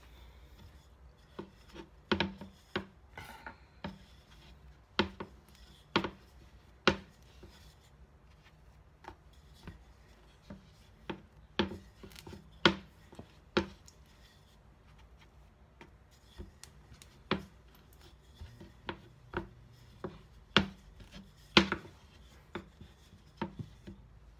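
A wooden rolling pin rolls out dough on a plastic cutting board, knocking and clacking against the board. Sharp, irregular taps come a few seconds apart, some in quick pairs.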